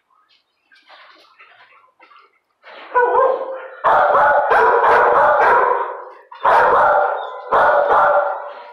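Kennel dogs barking. The first few seconds are faint, then about three seconds in comes loud, dense barking in several long stretches.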